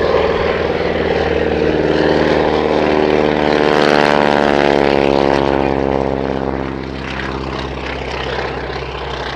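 Grumman Ag Cat biplane's radial engine and propeller in a low pass, a steady drone that is loudest about four seconds in and drops in pitch as the aircraft goes by, then fades.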